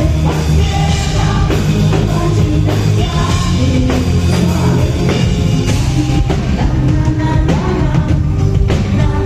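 Live rock music, loud and steady: a band with a drum kit playing, with singing over it.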